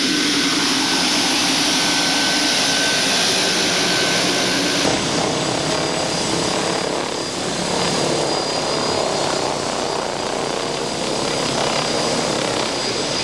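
Helicopter running, a loud steady noise of engine and rotor, which changes abruptly about five seconds in.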